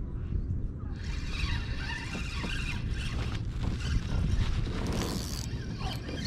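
A fishing reel being cranked as a small bass is brought in. There is a whirring from about a second in that stops shortly before the end, over a constant low rumble.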